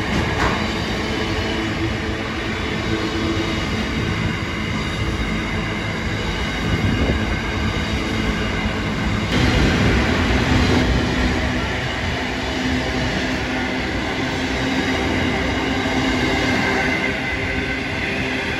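Intermodal container freight train rolling past close by: a steady rumble of the wagon wheels on the rails, with a thin, steady high squeal from the wheels.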